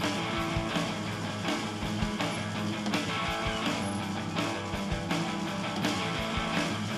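Rock music with guitar and a steady drum beat, about two beats a second.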